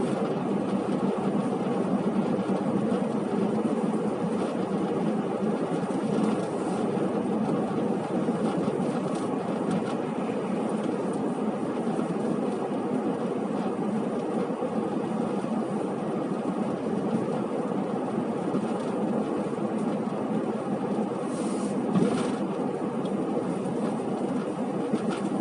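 Steady road and engine noise of a car heard from inside the cabin while driving.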